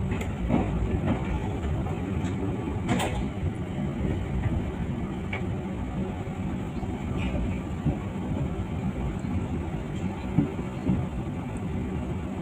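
Inside a moving passenger train carriage: a steady low rumble with scattered small clicks and knocks, and one sharp knock about three seconds in.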